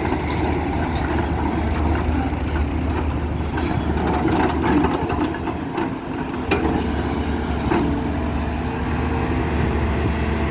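Heavy diesel engine running steadily under load, with a few sharp metallic knocks.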